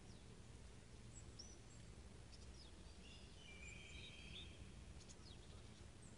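Faint birdsong: scattered high chirps and short whistles from small birds, with a brief rapid trill about three seconds in, over a low steady rumble.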